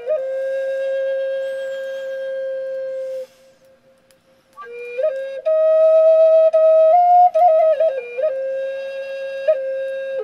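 Solo flute playing a slow melody of long held notes with quick grace-note flourishes between them. It drops away for about a second a little past three seconds in, then comes back.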